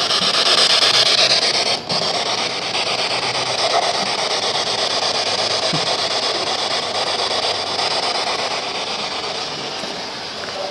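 Ghost box (spirit box) radio sweeping through stations: a steady hiss of static with a brief dropout about two seconds in.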